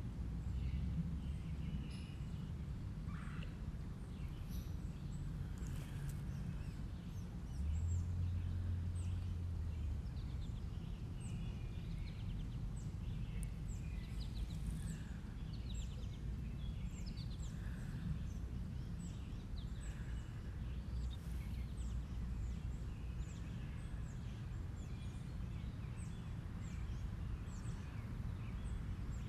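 Many short, high bird chirps and calls over a steady low rumble, with a brief low hum about eight seconds in.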